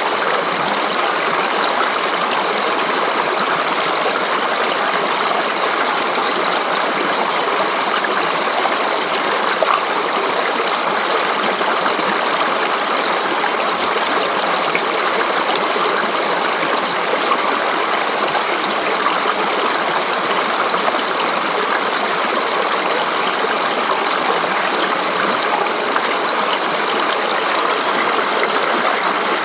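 Fast-flowing shallow stream splashing over rocks: a steady, even rush of water that holds the same level throughout.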